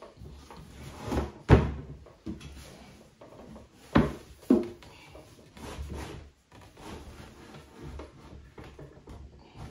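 Knocks and bumps on a bathroom vanity cabinet as it is handled at its base: one sharp knock about a second and a half in, the loudest, then two more close together about four seconds in, with quieter handling noises between.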